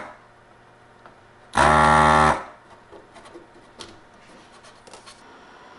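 Handheld desoldering gun's vacuum pump running in one short burst of under a second, about one and a half seconds in, sucking solder from a capacitor's leads on the circuit board. It is followed by a few light clicks and taps as the board is handled.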